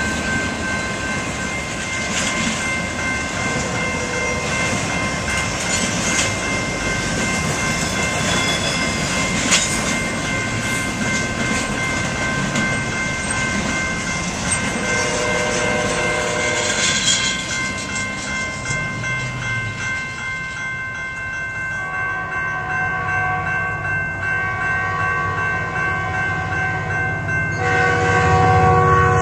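BNSF intermodal trailer train rolling past a grade crossing, its flatcar wheels clattering over the rails, with the crossing bells ringing steadily. In the last several seconds an approaching Metrolink train sounds its horn in short blasts, then a louder, longer one near the end.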